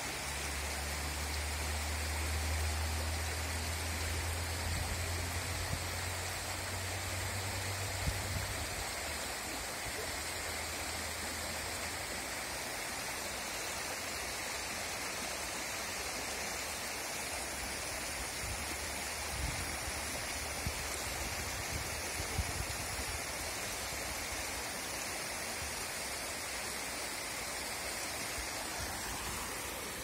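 Steady rush of a small forest waterfall, about six metres high, splashing down rock steps into a river. A low rumble sits under it for roughly the first nine seconds.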